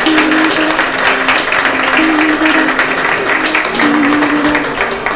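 Audience applauding, a dense spatter of clapping hands, with background music and its held notes running underneath.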